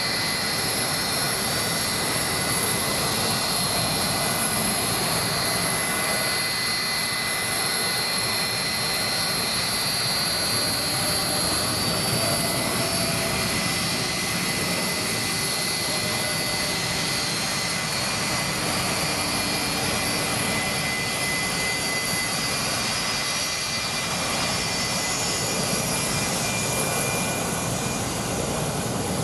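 Rolls-Royce RB211 turbofan engines of a Boeing 757 running steadily: an even jet rush with a constant high-pitched whine layered over it.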